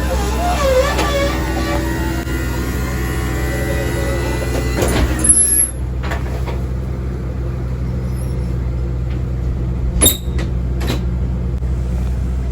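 Paratransit bus engine running with a steady low drone, heard from inside the cabin. There is a sharp clack about five seconds in and another about ten seconds in.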